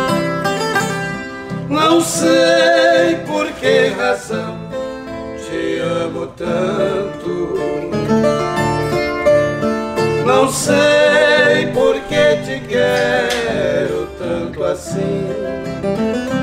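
Viola caipira and acoustic guitar playing an instrumental passage of a sertanejo song, the ten-string viola picking notes over the guitar's accompaniment.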